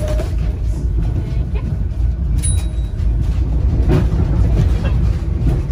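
Blackpool 1937 Brush railcoach tram 634 running along the track, heard inside the saloon: a steady low rumble of wheels and running gear, with a few knocks and rattles, the loudest about four seconds in.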